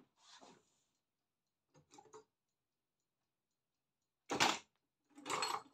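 Metal hand tools clinking and clattering as they are rummaged through in search of a bigger spanner: a few faint clicks early on, a loud clatter about four seconds in, and more clinking near the end.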